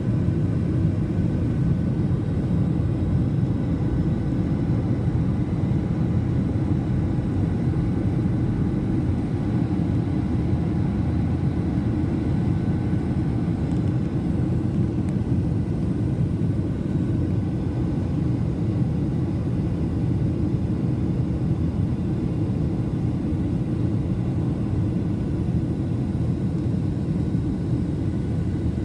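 Airliner cabin noise in flight: a steady, dense low rumble of airflow and engines, with a faint steady whine of thin tones above it.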